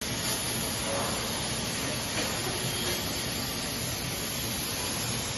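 CNC plasma cutting torch of a Ficep Tipo C25 plate processing centre cutting through metal plate: a steady hiss.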